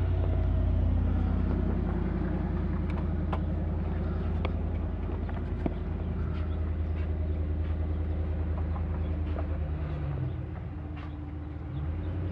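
Steady low hum of an idling engine, with a fast even pulse. It dips briefly near the end and comes back. A few faint ticks can be heard over it.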